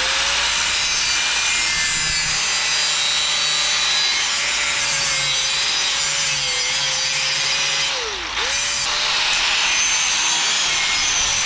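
Electric grinder running under load, grinding the split PTO shaft ahead of welding. Its motor pitch sags and wavers as it is pressed in, drops sharply and picks back up about eight seconds in.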